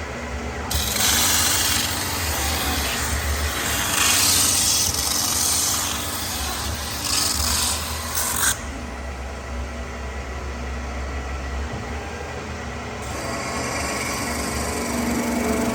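CNC metal-spinning lathe at work: a hissing, scraping rub of the forming tool against the spinning sheet-metal blank. It starts about a second in and cuts off abruptly just past halfway, over a steady low machine hum.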